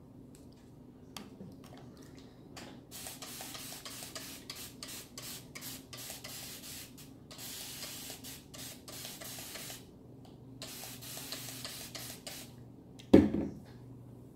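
Fingers raking product through a section of wet curly hair close to the microphone, a rustling, rubbing noise in three long stretches with short crackles, and one sharp loud knock near the end.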